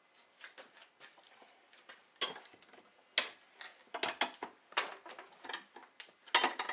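Metal clinks and clanks as a snowmobile ski saddle is set between the jaws of a bench vise and the vise's sliding handle is worked to clamp it. There are sharp knocks about two and three seconds in, and a quick run of clanks over the last few seconds.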